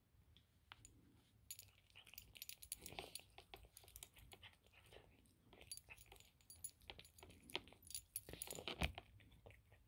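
Cat chewing crispy fried chicken: faint, irregular crunches and crackly clicks, mixed with small metallic jingling clinks from its collar. A duller knock comes near the end.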